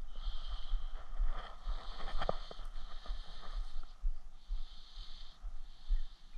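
Outdoor ambience: wind rumbling on the microphone, with a high buzzing hiss that comes and goes in spells of about a second, and a couple of light clicks about two seconds in.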